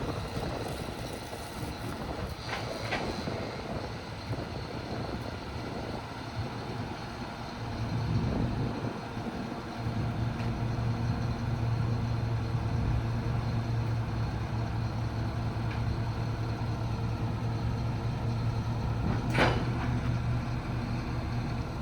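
Caterpillar C7 diesel engine of a service truck running steadily while it drives the crane's hydraulics, with a low hum that grows stronger and steadier about ten seconds in. There are a few light clicks early on and one sharp click near the end.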